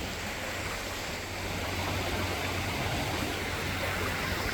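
Floodwater in a creek rushing steadily, a little louder from about one and a half seconds in.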